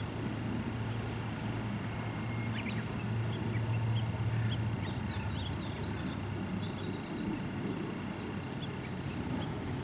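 Small birds chirping in short, high calls, scattered through a steady outdoor hiss with a low rumble and a faint steady high whine.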